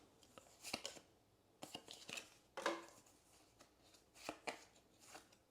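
Faint, scattered crisp taps and short rustles of Pokémon trading cards and a foil booster pack wrapper being handled.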